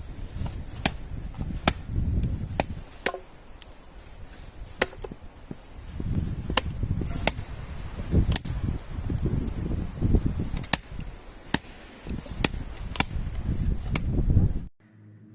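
Wood being chopped for a campfire: sharp knocks about once a second over a low rumble of wind on the microphone, cut off just before the end as music begins.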